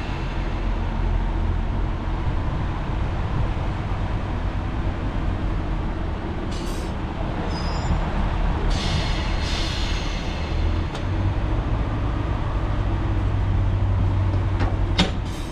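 Diesel engine of a British Rail Pacer railbus idling steadily, with brief hisses of air about six and nine seconds in and a sharp click near the end.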